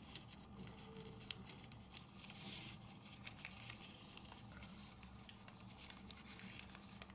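Folded origami paper rustling and crinkling with small ticks as fingers tuck flaps of a paper spinning top into place. The loudest rustle comes about two and a half seconds in.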